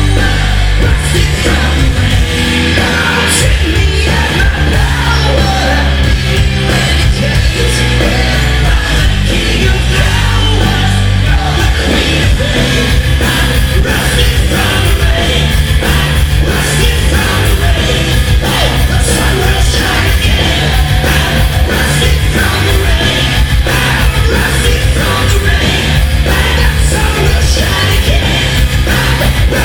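Rock band playing live and loud, with yelled vocals over the band.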